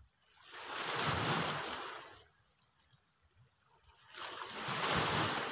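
Small sea waves washing in over the rocks twice, each wash swelling and fading away over about two seconds.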